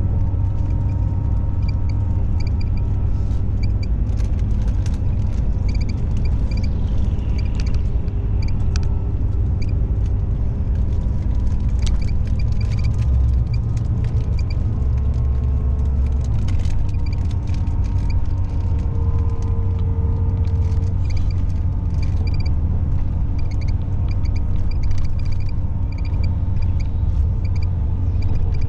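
Steady low rumble of road and engine noise inside a coach cruising on a highway, with a faint, regular high ticking.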